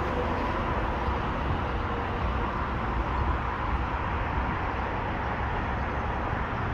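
Steady, even rumble of distant road traffic, with a faint steady hum running through it.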